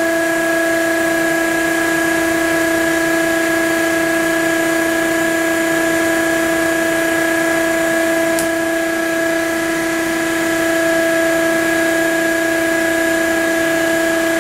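Dust-extraction vacuum on a CNC router's dust boot running with a steady whine, with a faint short tick about eight seconds in.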